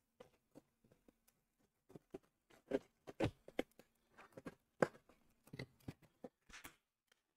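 Handling noises from a taped-up shipping box being opened: scattered quiet taps, clicks and rustles of the packaging, starting about two seconds in and stopping near the end.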